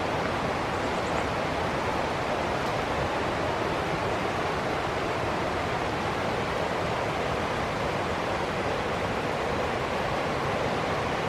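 Ocean surf, a steady even rushing noise with no separate wave crashes standing out.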